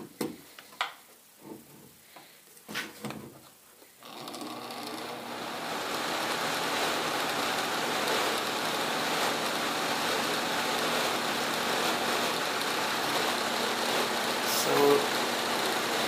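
A few clicks and knocks as a bathroom exhaust fan's motor and plastic blower wheel are handled, then about four seconds in the fan motor starts, spins up and runs steadily. Out of its housing it makes only a little bit of noise, which suggests the loud noise in the bathroom comes from something else in the housing vibrating.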